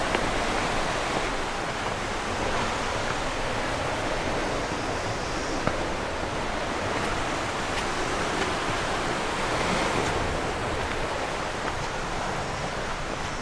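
Sea waves washing onto the shore: a steady, even rushing, with a few faint clicks on top.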